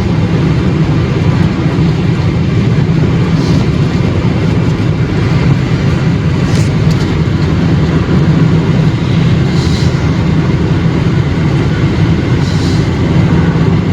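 Steady engine and tyre noise inside the cabin of a moving vehicle, with a strong low hum.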